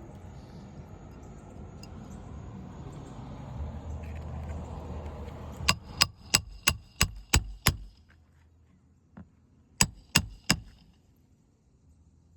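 Hammer striking a metal shingle-removal tool on a brittle asphalt shingle roof. There is a quick run of seven sharp, ringing metallic strikes, a pause, then three more. A low steady noise builds up before the strikes.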